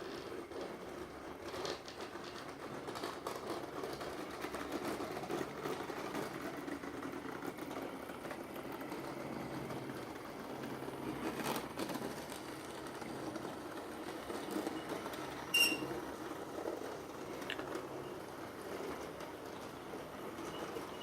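Model railway locomotive running along the track with its train, a steady small-motor whir with light clicks of wheels over the rails. The owner takes the noise as a sign that something needs oiling.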